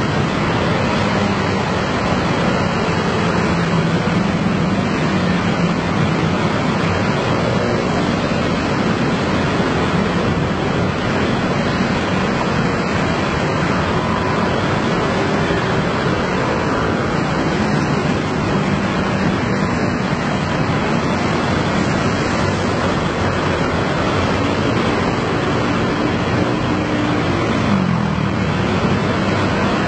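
Dense, steady din of a great many motor scooter engines running together as a packed stream of scooters rides past, with individual engine hums wandering within it. Near the end one engine's note drops in pitch.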